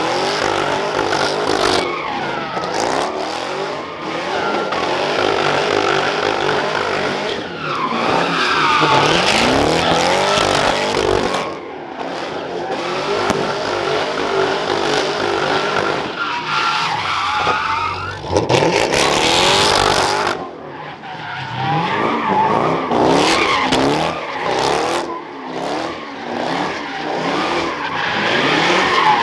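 Car engines revving hard, pitch climbing and falling again and again, over continuous tyre screeching as cars spin donuts at a street sideshow.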